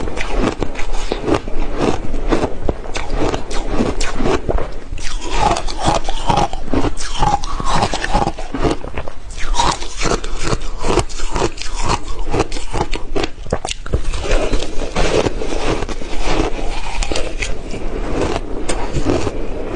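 Crushed ice being bitten and chewed close to a clip-on microphone: dense, continuous crunching and crackling.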